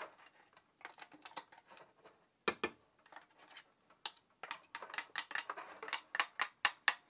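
A metal spoon scraping and tapping beetroot mash off a hand blender over the pot: a run of short clicks and taps, with a sharp double knock about two and a half seconds in and quicker, busier tapping in the second half.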